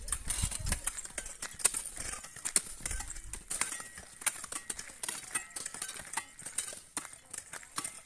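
Hoes and scrapers knocking and scraping on dry, hard soil: many irregular sharp strikes from several workers at once. A low rumble sits under them for the first three and a half seconds.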